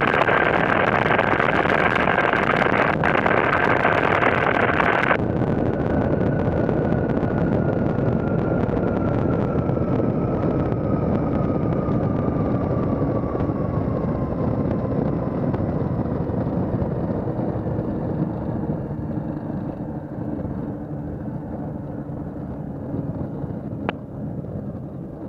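Light aircraft engine and wind noise in an open cockpit. About five seconds in, the power comes off sharply and the engine tone falls slowly in pitch as the sound eases, consistent with throttling back to land.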